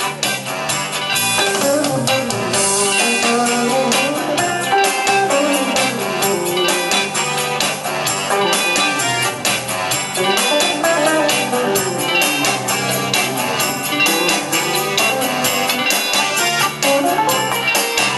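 Instrumental pop backing music led by electric guitar over a steady drum beat, with no singing.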